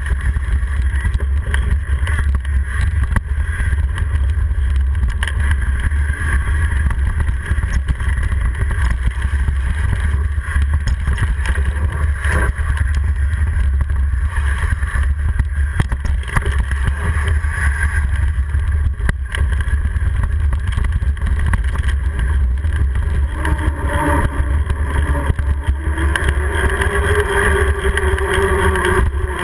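Wind buffeting the microphone of a handlebar-mounted GoPro on a mountain bike at speed, a steady loud rumble mixed with tyre and trail noise. Near the end, with the bike on pavement, a humming tone rises and falls.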